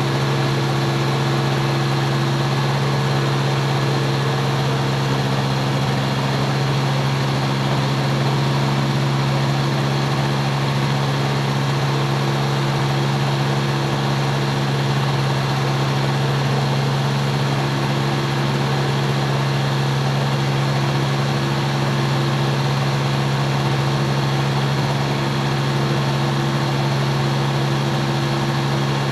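Microlight trike's engine idling steadily on the ground with its pusher propeller turning, a constant pitched hum that holds the same pitch throughout.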